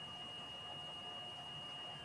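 Faint, steady electronic whine: a thin high tone with a weaker lower tone over soft hiss.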